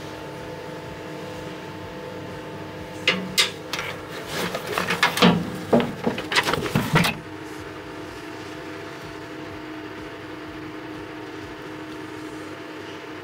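A steady mechanical hum with several fixed tones, with a few seconds of clothing rustle and small knocks in the middle as a work shirt is pulled on and adjusted.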